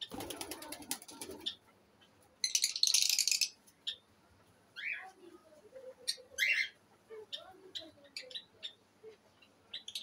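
Mixed aviary birds: a ringneck dove's wings flap quickly at the start, a harsh burst about a second long comes near the middle, then short high chirps from small parrots and soft low coos from the doves.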